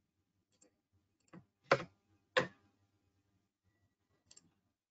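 A few sharp, irregularly spaced clicks of a computer mouse, the two loudest near the middle, with fainter ones before and after.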